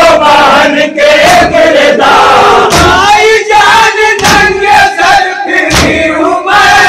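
A group of men loudly chanting a Muharram noha (lament) together into microphones. Dull thumps of hands beating on chests (matam) come through under the voices.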